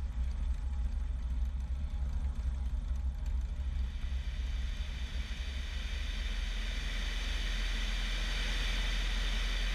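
Bellanca Decathlon's 150 hp Lycoming engine and propeller running hard through the takeoff roll and lift-off, heard from outside the cabin with heavy wind rumble on the microphone. The rushing hiss grows about halfway through as the plane leaves the runway and climbs.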